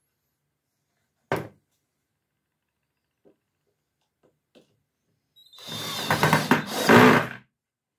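A single sharp knock about a second in, a few faint clicks, then a cordless drill driving a screw through a plastic clip into a laminated furniture panel for about two seconds near the end.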